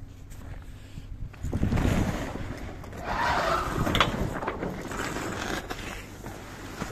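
Gusty wind buffeting the microphone, swelling about one and a half seconds in and again about three seconds in, with a sharp knock about four seconds in.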